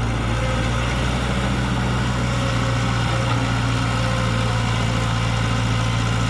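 Diesel engine of an E120B hydraulic excavator running steadily at an even, low speed, with no revving.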